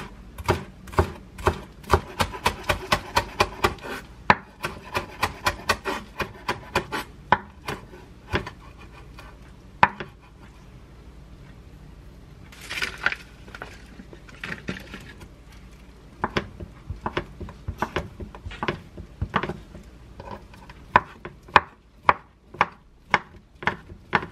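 Kitchen knife chopping green onions finely on a wooden cutting board: quick, even knocks of the blade on the board, about three a second. About halfway there is a pause with a brief scrape, and the second half has steadier, slower chopping as ham is diced.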